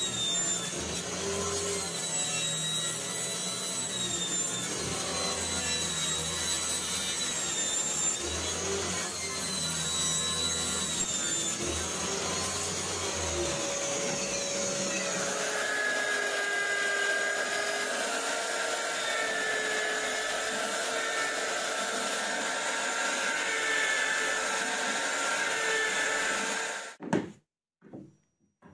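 Homemade table saw running and crosscutting plywood panels on a crosscut sled, a steady whine under the cutting noise. About halfway through the sound changes to a drill press boring holes in wood, with a different steady whine, until it stops suddenly near the end.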